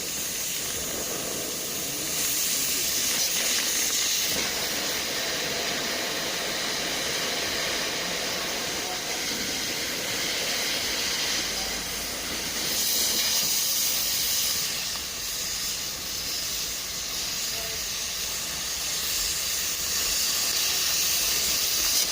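Campfire coals giving a steady hiss, rising and falling slightly in loudness.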